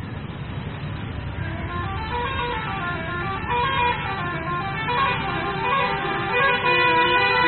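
A bus's telolet horn, a multi-trumpet air horn, playing a warbling melody of several tones that rise and fall together. It comes in about two seconds in and grows louder over the low rumble of the bus.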